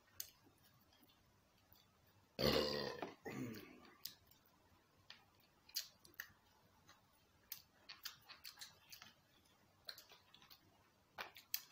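Eating sounds from fried chicken being chewed: faint scattered smacks and clicks, with one loud burp about two and a half seconds in that lasts about a second and a half.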